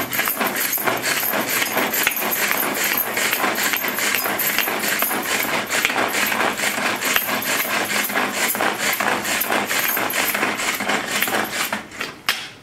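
Pigeon hand-pull food chopper worked in rapid repeated pulls: the cord whirs and the spinning blades chop cucumber pieces in the plastic bowl, a dense rattling clatter. It stops about a second before the end.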